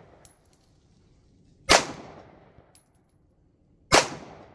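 Two shots from a .45 ACP Glock pistol, about two seconds apart, each with a short decaying echo. They are the last rounds of a three-round string fired with rocks and dirt in the gun, and the slide locks back on the empty magazine after the second one.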